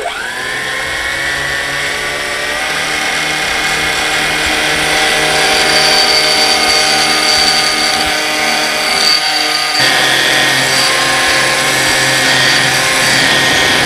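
Small battery-powered electric thruster motors spinning shrouded propellers in air on a bench test. A steady electric whine rises in pitch over the first couple of seconds as they spin up, then holds, its pitch shifting slightly just under ten seconds in.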